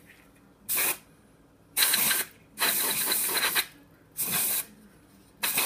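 Canned compressed-air duster spraying in five short bursts of hiss, the third the longest at about a second. It is blowing dust off an LED driver circuit board.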